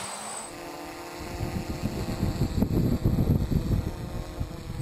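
DJI F450 quadcopter's brushless motors and propellers humming steadily close overhead, with a heavy, uneven low rumble of rotor wash buffeting the microphone from about a second in until near the end.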